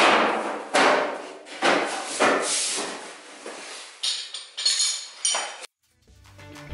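Sheet-steel front panel of a 1973 VW bay window camper knocking and clanking as it is pressed and shifted into position by hand: a run of hollow knocks, then lighter ringing metal clinks about four seconds in. Music starts near the end.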